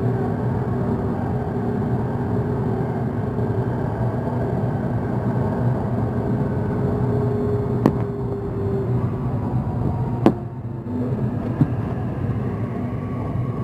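Santiago Metro Line 6 AS-2014 train heard from inside the car, running through the tunnel as a steady rumble with humming motor tones. The hum fades in the last few seconds and three sharp clicks sound as the train pulls into a station.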